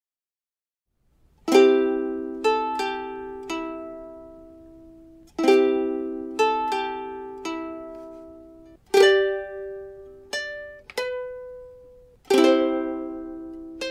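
Instrumental music on a plucked string instrument: a chord strummed about every three and a half seconds, each followed by a few single notes that ring and fade. It starts about a second and a half in, after silence.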